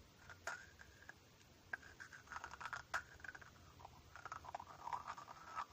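Faint close-miked scratching and crackling, with a few sharp clicks; the loudest click comes about 3 seconds in.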